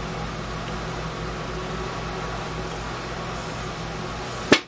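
Steady electric hum and hiss of a homemade smoke machine's air pump, pushing smoke down a line into a small two-stroke engine's spark plug hole for a smoke and leak test. A single sharp click near the end, after which the hum drops away.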